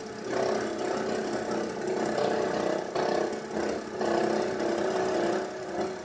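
BMW E92 328i inline-six engine idling with a rattle from the belt-driven accessories, which the owner traced to a failing alternator.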